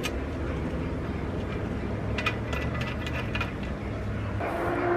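Light metallic clicks and clinks of a small fitting being threaded into the top of a blow-off valve on an aluminium pipe, a quick run of them in the middle, over a steady low hum.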